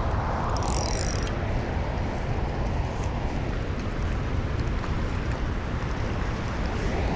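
Steady rush of churning dam tailwater below a concrete wall, with a low rumble underneath. A short high hiss comes just after half a second in and lasts under a second.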